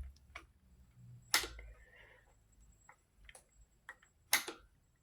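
Scattered sharp clicks and taps, the two loudest about a second and a half in and near the end, with fainter ticks between.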